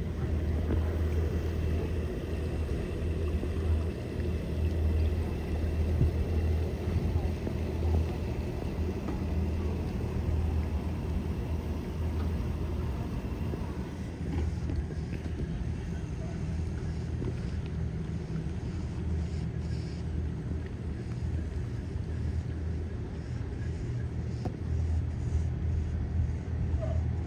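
Several large outboard engines on a performance catamaran idling together: a low, steady rumble that throbs slightly.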